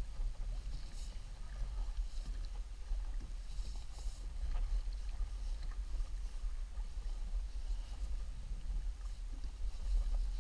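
Sea water splashing and lapping against the hull of a Hobie Outback kayak on choppy water: short hissy splashes every second or two over a steady low rumble.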